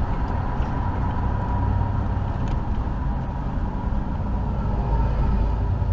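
Steady engine and road rumble heard inside a truck's cab while driving, swelling a little near the end.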